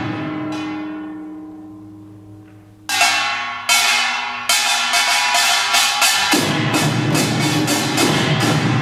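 Samulnori percussion: a metal gong rings on and fades after a stop. About three seconds in, sharp strokes on the small hand gong (kkwaenggwari) start again, a few at first and then quicker. A little past six seconds the janggu and buk drums come in with fast full-ensemble playing.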